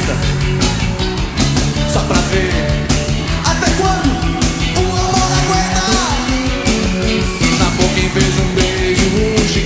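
Rock music playing an instrumental stretch with no lyrics sung: a steady drum beat under a lead line that bends up and down in pitch.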